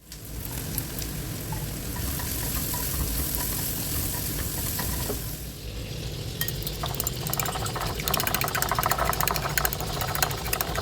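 Food sizzling as it fries in a pan. From about six seconds in, a spatula stirs and scrapes through it in rapid, rattling strokes.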